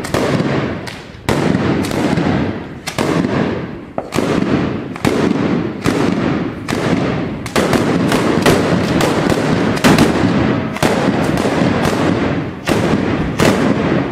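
B509 Mascleta firework going off in a rapid string of loud bangs and crackling. The bangs come thicker and faster through the second half and stop near the end.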